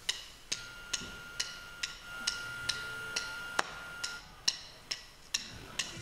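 Steady clock-like ticking, about two ticks a second, with a thin high tone held through the first part.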